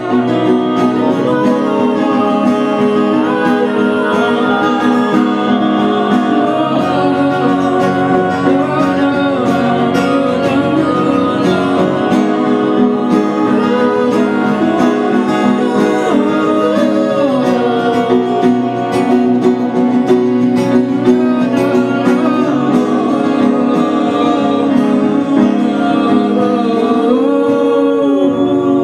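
Live acoustic song: singing over grand piano and acoustic guitar accompaniment.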